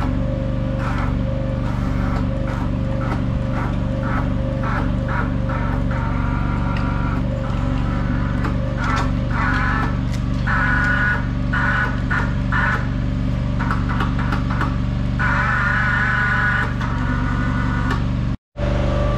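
Background instrumental music with a steady beat and a wavering synth melody. It drops out to silence for a moment near the end.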